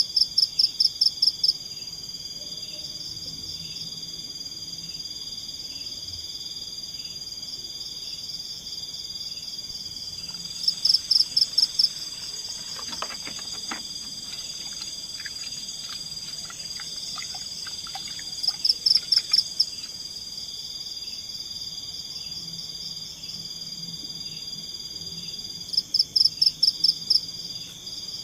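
Night forest chorus of insects, a steady high-pitched trilling. Over it, a louder call of about seven quick pulses repeats four times, roughly every eight seconds. A run of faint clicks and ticks comes in the middle.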